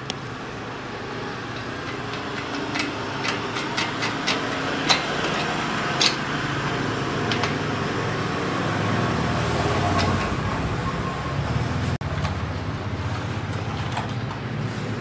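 Sharp metal clinks and taps as a splined drive shaft is worked onto the output of a motorcycle reverse gearbox, the loudest two about five and six seconds in. Under them runs a steady low hum that grows louder about nine seconds in.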